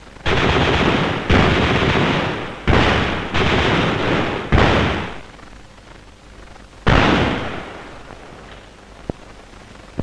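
Gunfire: about six loud reports or short bursts in the first seven seconds, each ringing on for about a second before fading.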